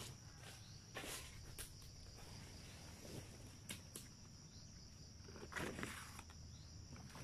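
Faint rustling and crackling of large banana leaves as one is pulled down by hand, a few short rustles, the loudest near the end. A steady high insect drone runs underneath.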